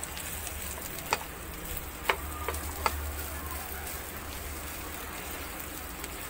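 Garlic fried rice sizzling in a nonstick pan as it is stirred with a spatula, with a few sharp clicks of the spatula against the pan between about one and three seconds in.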